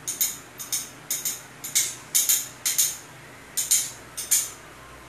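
Curry spluttering in a pan under a glass lid: a run of short hissing spits, often in pairs, that stops about four and a half seconds in.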